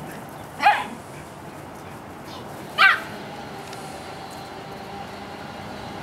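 A dog playing, giving two short, high-pitched barks about two seconds apart.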